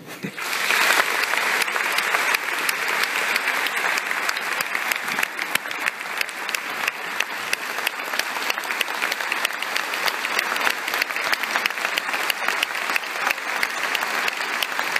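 A large audience applauding at the end of a speech: dense, steady clapping that swells to full strength within the first second and keeps up evenly.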